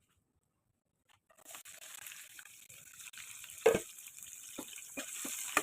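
Food hitting a hot, oiled pan and starting to sizzle with a steady hiss, with a few knocks of a utensil against the pan; the loudest knock comes about two seconds after the sizzle starts.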